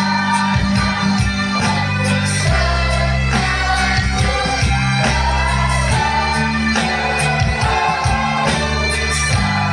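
Children's choir singing over a musical accompaniment with steady bass notes and a regular beat.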